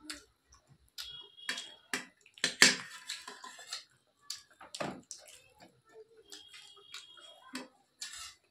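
Close-miked eating at a table: a string of short, irregular wet clicks and smacks from chewing and from fingers working rice and curry, with a few light clinks of a spoon against a metal plate. The loudest click comes a little over two and a half seconds in.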